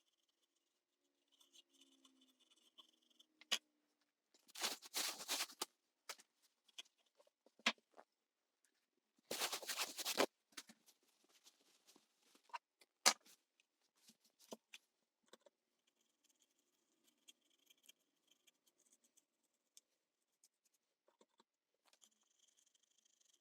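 A brush scrubbing a circuit board wetted with isopropyl alcohol to lift burned flux, in two short bursts of rapid scratching, with scattered small clicks and taps in between.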